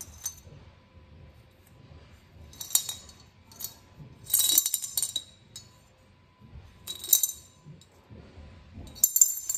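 Old coins rattling and clinking inside a glazed ceramic coin bank as it is tipped back and forth, in four short bursts of clinks.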